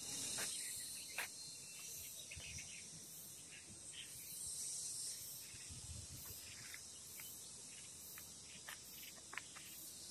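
Insects chirring steadily in a high-pitched haze with a faint regular pulsing. Scattered faint clicks and low thumps run through it.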